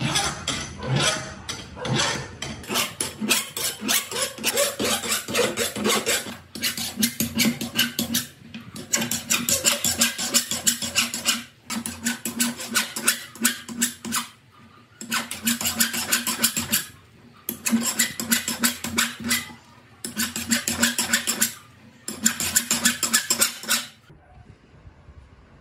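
Hand file rasping back and forth on the steel threaded screw end of a hydraulic jack clamped in a vise, in runs of rapid strokes a few seconds long with short pauses between. The filing stops shortly before the end.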